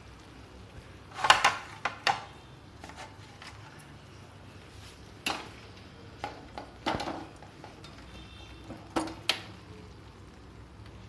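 Steel ladle clinking and scraping against a metal kadhai and a ceramic plate as baked beans are scooped and spread onto toast: short clusters of knocks and clinks, the loudest about a second in.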